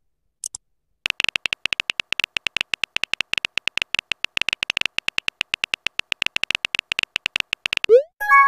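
Keyboard typing clicks from a texting app: a fast, even stream of short, high clicks, about ten a second, as a message is typed letter by letter. Near the end comes a quick rising bloop followed by a bright chime, the message-sent sound.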